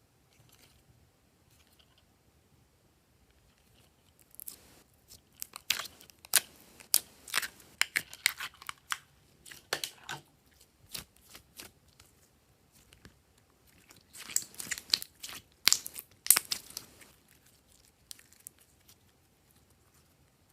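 Slime being squished and pressed by hand, giving dense sharp crackles and pops in two bursts a few seconds long, with quiet in between.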